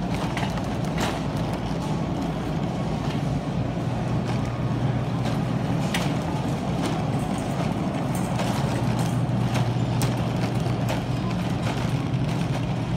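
Grocery store ambience: a steady low hum and rumble, with scattered light clicks and knocks.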